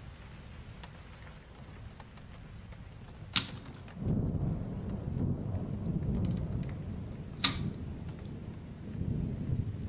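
Two sharp clicks about four seconds apart from an old mechanical alarm clock's mechanism, over low rumbling handling noise that sets in after the first click.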